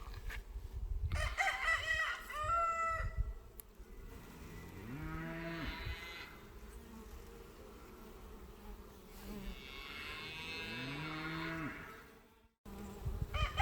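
Cattle mooing twice, each a long low call that rises in pitch and then holds, about five and ten seconds in. Before them a rooster crows.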